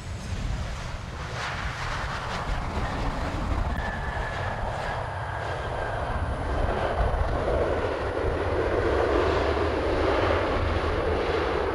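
Jet airliner's engines passing: a steady high whine that drifts slightly down for a couple of seconds, with the jet noise growing louder toward the end.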